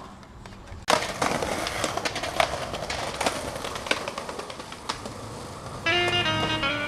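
Several skateboards rolling over stone paving with a steady wheel rumble and sharp clacks of boards and trucks hitting the ledges, starting about a second in. Guitar music comes in near the end.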